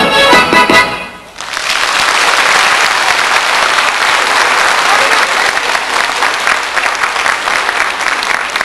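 Accordion-led folk dance music ends about a second in, and the audience then breaks into steady applause.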